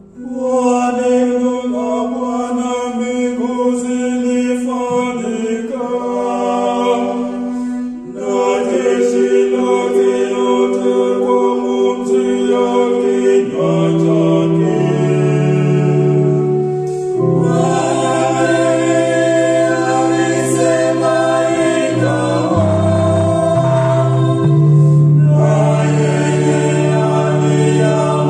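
Small mixed vocal group singing a Swahili responsorial psalm in harmony, in phrases with short breaks between them, accompanied by an electronic keyboard and an electric bass guitar.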